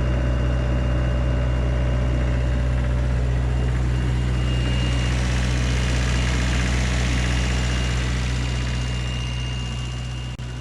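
Diesel engine idling steadily with a deep, even hum, easing slightly near the end.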